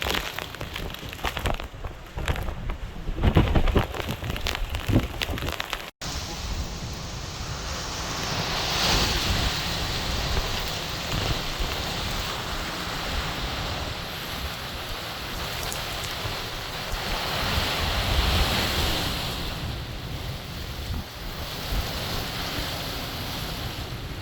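Hurricane wind and rain, with gusts buffeting the microphone in hard, uneven thumps for the first few seconds. After a sudden break, a steady rush of wind and rain that swells in a gust twice.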